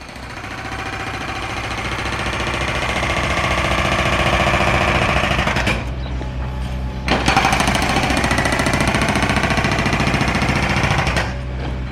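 A powered breaker hammering rapidly on the building works. It grows louder over the first few seconds, stops for about a second midway, then starts again.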